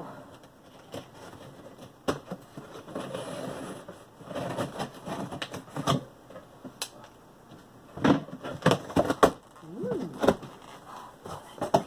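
Scissors cutting open a cardboard shipping box along its top seam, then the cardboard flaps being pulled apart: irregular snips, scrapes and crackles, with a cluster of sharp clacks about eight to nine seconds in.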